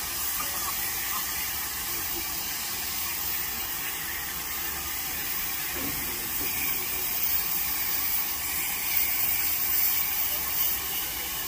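Steam locomotive No. 9351 blowing off steam: a steady hiss that sets in suddenly and holds, growing a little louder in the second half.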